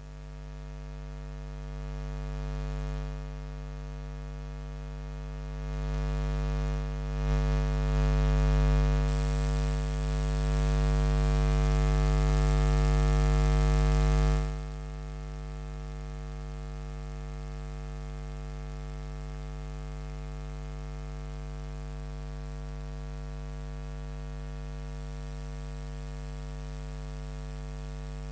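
Electrical mains hum with a buzzy edge on the audio, growing louder over the first fourteen seconds or so, then dropping suddenly to a steady lower level. A thin high whine joins about nine seconds in and continues.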